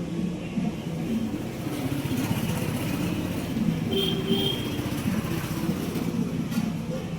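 A small engine running steadily with a slightly wavering pitch, with two short high beeps about four seconds in.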